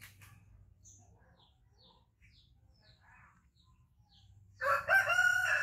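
Faint small-bird chirps, then a rooster crowing loudly near the end for about a second and a half.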